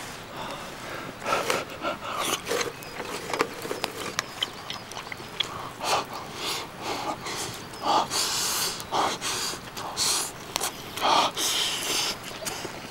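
A person eating close to the microphone: chewing and slurping mouthfuls of offal stew and rice, with short breaths through the nose between bites. The noises come in irregular bursts, about one a second.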